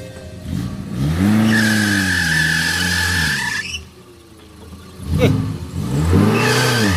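Off-road 4x4's engine revving up and back down twice, with a steady high whine and hiss during the first rev.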